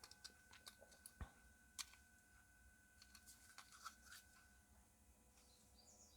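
Near silence, with a few faint, irregular small clicks from a plastic quartz clock movement being handled.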